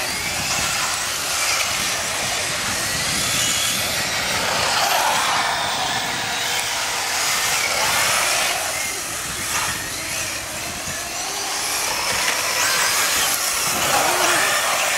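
Several radio-controlled cars driving fast on asphalt, their small motors whining continuously and rising and falling in pitch as they speed up and slow down.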